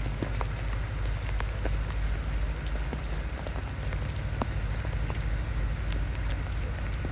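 Heavy rain pouring onto a flooded street: a steady hiss with scattered sharp taps of nearby drops and a low rumble underneath.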